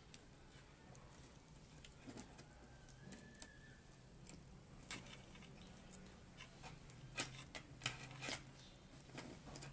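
Scattered light clicks and taps, loudest in a cluster between about seven and eight and a half seconds in, over a faint steady low hum.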